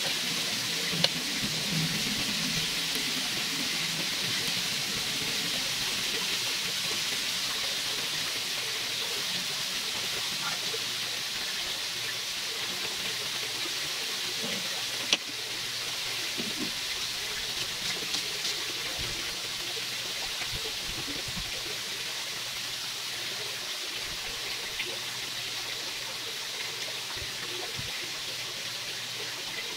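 Marinated chicken fillets sizzling steadily on an electric grill plate, an even hiss, with a sharp click about a second in and another about halfway through.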